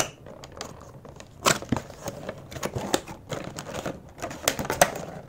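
Cardboard box being opened by hand: the tuck flap pulled open and a clear plastic packaging tray slid out, giving irregular sharp clicks and crinkles of card and plastic.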